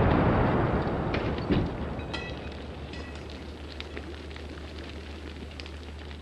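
Aftermath of a car explosion: the blast's rumble dies away over the first couple of seconds, leaving scattered crackling and small clicks like burning and settling debris.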